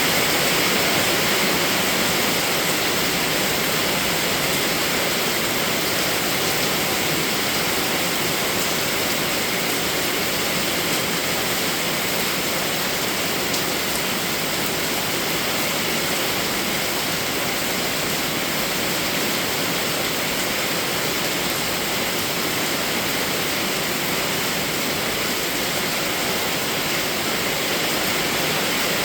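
Rain falling steadily as an even, unbroken hiss, with no separate drops or other sounds standing out.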